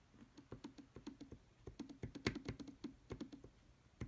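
Rapid, irregular light taps and clicks of a fingertip working the iPhone's touchscreen, several a second.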